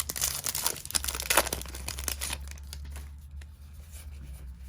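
Foil trading-card booster pack being torn open, its wrapper crinkling. The tearing is loudest about a second in and dies down after about two and a half seconds.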